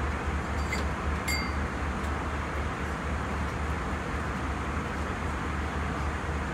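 Steady cabin noise of an Airbus A321 airliner: a low engine rumble under an even rush of air. Two light clinks come about a second in.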